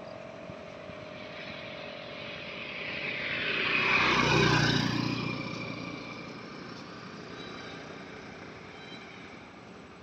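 A vehicle passing along the road, growing louder to a peak about four seconds in and then fading away.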